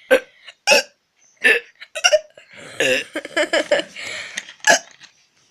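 A string of short, forced burps, each a brief gulp from the throat: single ones about every half second to second, with a quicker run of them around the middle.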